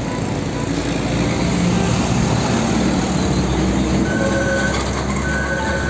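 Road traffic noise: a loaded car-carrier truck's diesel engine and tyres passing, a steady rumble and hiss, with two faint short high squeals near the end.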